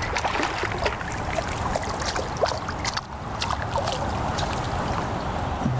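A hooked bass thrashing and splashing at the water's surface beside the boat as it is landed by hand, in many short irregular splashes over a steady low rumble.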